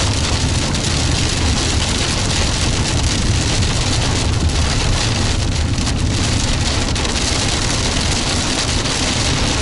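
Storm wind buffeting the microphone, with rain: a loud, steady rush with a heavy low rumble.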